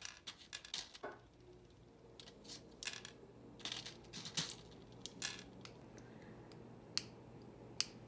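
Light, irregular clicks and taps of a plastic bag clip picking up dry macaroni pieces from a paper plate and dropping them onto a wooden board, thinning out in the second half.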